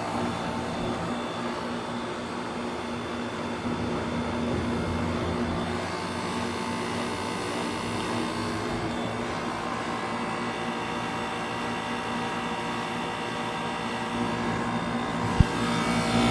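Philco heat pump outdoor unit running steadily through its defrost cycle: a low hum under an even rushing noise, with one sharp click near the end.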